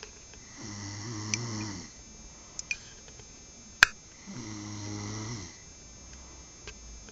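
A sleeping person snoring: two low snores, each a little over a second long, about three and a half seconds apart. A single sharp click comes just before the second snore.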